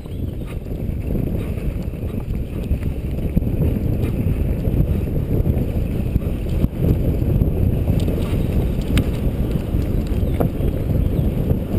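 Wind rushing over a helmet-mounted GoPro camera as a mountain bike rides fast down a dirt forest trail, with the rumble of tyres and bike over the ground. It grows louder over the first few seconds, and a few sharp clicks come near the end.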